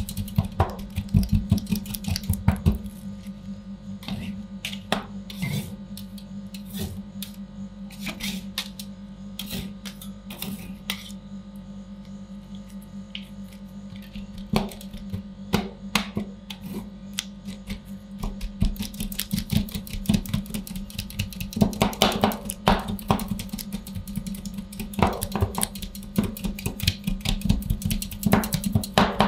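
Metal spatulas tapping and chopping on the frozen surface of an ice cream roll pan, in quick runs of sharp clicks that thin out for a while and then speed up again near the end. A steady hum from the cold plate runs underneath.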